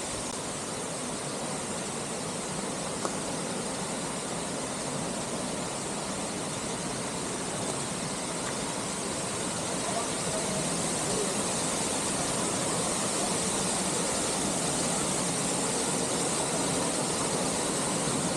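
Waterfall: a steady rush of falling water that gets a little louder about halfway through.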